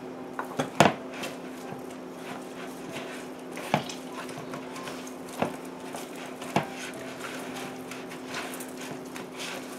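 A hand squishing and kneading wet seitan dough (vital wheat gluten and broth) in a plastic mixing bowl, with a few light knocks and clicks scattered through, over a steady low hum.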